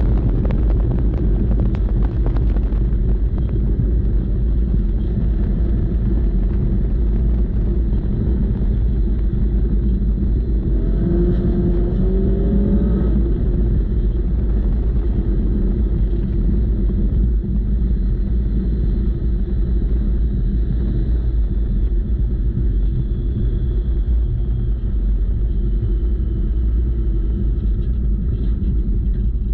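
Motorcycle-engined off-road buggy running under way, its Honda CBR1100 inline-four engine making a steady, loud low rumble. A short rise in engine pitch comes about eleven seconds in.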